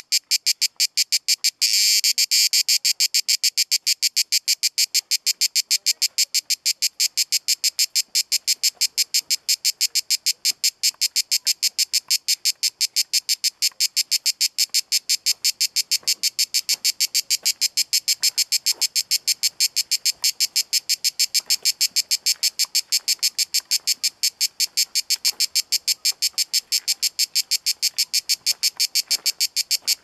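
A cicada singing loud and high-pitched, a fast, even train of rasping pulses that runs together into a steady buzz for a moment about two seconds in.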